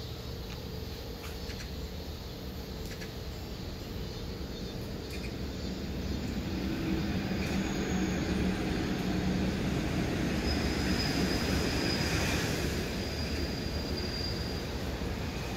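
Engine rumble of a vehicle passing by, swelling for several seconds through the middle and fading again, with a faint high whine as it goes by, over a steady low hum.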